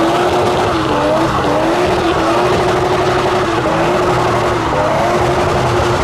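A car doing a burnout: the engine is held at steady high revs over a loud rush of spinning-tyre squeal.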